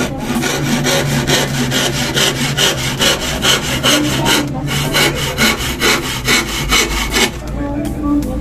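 Handsaw cutting through a wooden plank with quick, even strokes, about four a second, with a short break midway. The strokes stop about seven seconds in as the piece is cut off.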